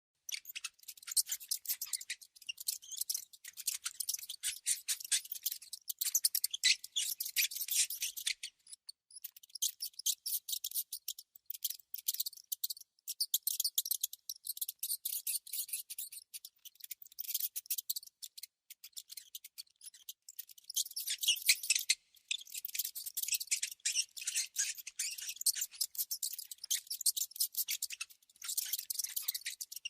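Mouse noises: rapid, irregular high-pitched clicking and squeaking in dense runs, broken by short pauses about eight and a half and twenty-two seconds in.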